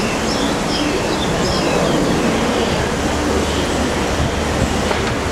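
Steady low engine rumble of an approaching EMD G26CU diesel locomotive with a 16-cylinder 645E prime mover. The low drone grows stronger about halfway through. Birds chirp in the first couple of seconds.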